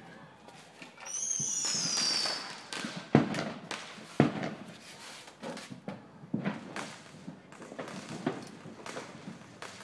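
Fireworks going off: a high whistle falling in pitch about a second in, then scattered sharp firecracker bangs, the two loudest about three and four seconds in.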